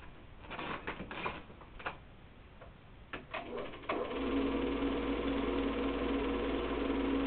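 Keystone K-539 8mm projector starting up: scattered clicks and knocks, then about four seconds in it settles into a steady whirring clatter with a hum as the film begins to run through.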